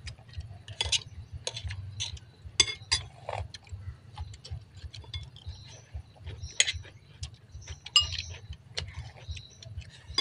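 Metal spoons clinking and scraping against ceramic bowls and plates while people eat, in short, irregular clinks, the sharpest a little before 3 s, near 6.5 s and around 8 s.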